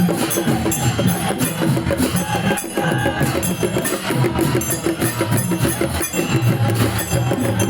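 Traditional festival procession music: drums and clashing cymbals in a steady, repeating rhythm.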